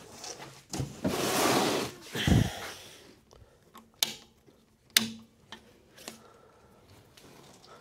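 Handling noise as a heavy inverter is tilted in its packing: a second-long rustle of plastic and foam, a dull thump, then two sharp knocks about a second apart against the metal casing.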